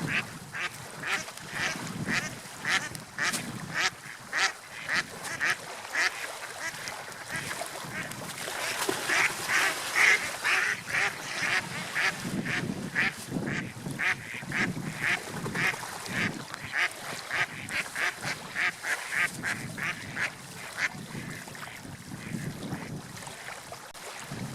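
Repeated short animal calls, about two a second, over a steady background haze of wind and water.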